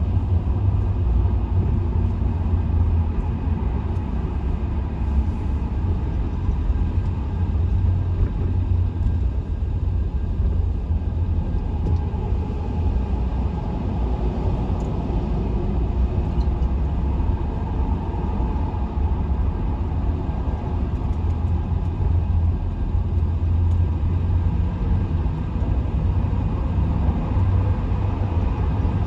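Steady low rumble of a motor vehicle driving on city streets: engine and road noise, unchanging throughout.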